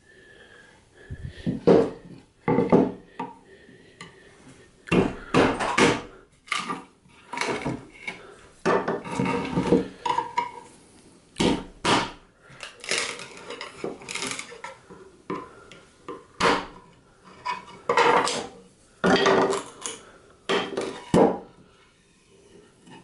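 Melamine-faced chipboard mould walls being pried and knocked off a cast resin-and-wood block with a thin metal tool, giving irregular clattering knocks and scraping. Removed boards are set down on the wooden bench.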